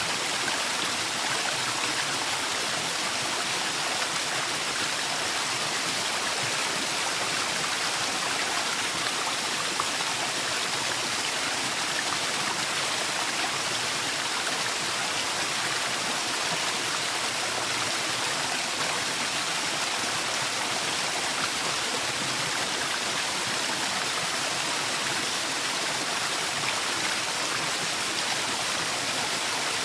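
Waterfall rushing steadily: water falling and running, an even hiss with no breaks.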